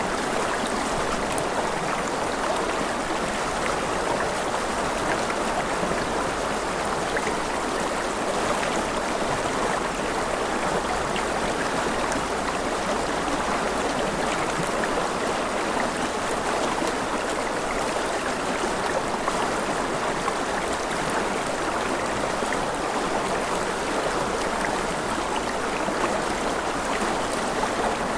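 Water of a stream flowing steadily, an even rushing without breaks or changes.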